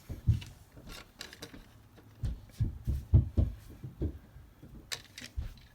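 Vinyl toy figures being handled and set down on a surface: a scatter of soft, low thumps, bunched together in the middle, with a few light clicks.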